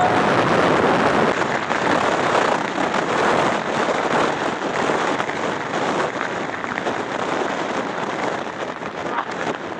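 Wind rushing and buffeting over the microphone with road noise from a moving vehicle, a steady crackling rush that fades a little toward the end.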